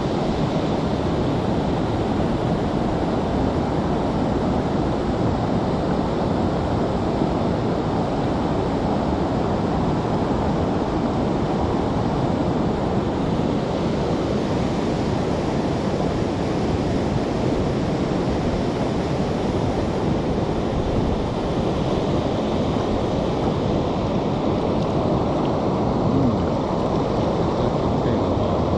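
A fast-flowing river rushing steadily, its current a dense, even roar of water with no let-up.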